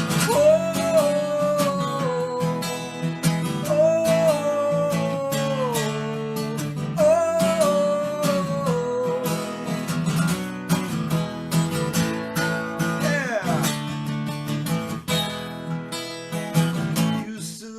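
Instrumental guitar break in a song: a melody line sliding between notes over steady strummed chords.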